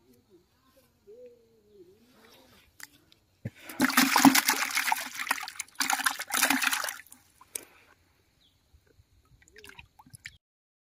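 Water splashing in two loud bursts that together last about three seconds, starting about three and a half seconds in.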